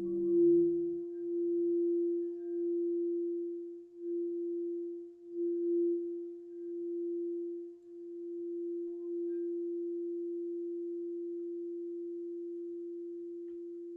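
A singing bowl ringing one steady, pure tone that swells and wanes in loudness for several seconds, then holds and slowly fades.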